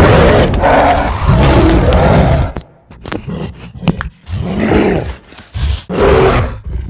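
Giant-monster roars and grunts, film sound effects from the Millennium-era Godzilla films. A long roar is followed by a few sharp hits, then two shorter roars.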